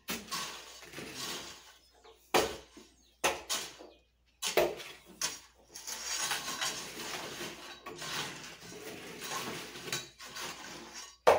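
Steel shovel blades scraping and scooping loose clay soil, spreading it over the floor as a fill, in a series of short scrapes with light metallic clinks. The scraping grows denser from about halfway on, as two shovels work together.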